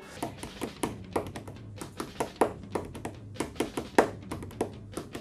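A run of light, irregular taps or clicks, about three or four a second, over a faint steady low hum.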